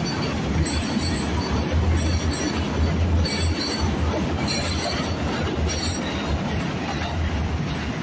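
New York City subway train running on the tracks: a steady low rumble with short high wheel squeals now and then.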